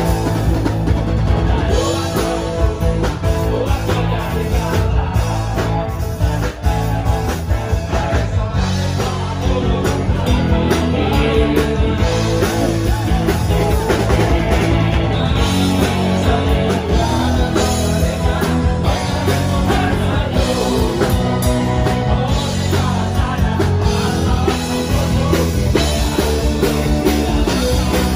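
Live rock-style band music, electric guitar and drum kit through stage loudspeakers, with voices singing into microphones.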